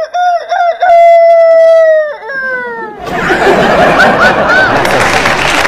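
A woman imitates a rooster's crow into a microphone: a few short notes, then one long held note that falls off at the end, about three seconds in all. A studio audience then breaks into laughter and applause.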